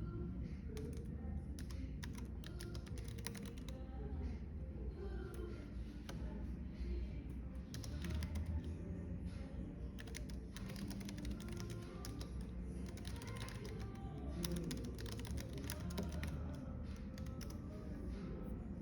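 Typing on a computer keyboard, keystrokes coming in quick runs with short pauses, over soft background music and a low, steady cafe rumble.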